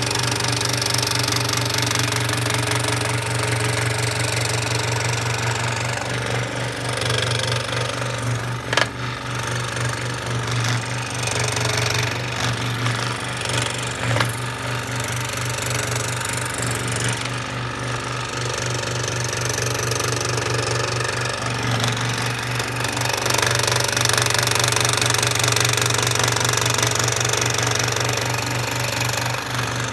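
A power tool working wood runs steadily, with a constant low hum under a dense, rough noise. A sharp click cuts through it about nine seconds in.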